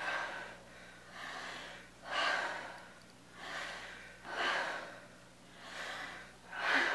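A person breathing deeply and audibly, in and out. There is about one breath sound a second, and every other one is louder.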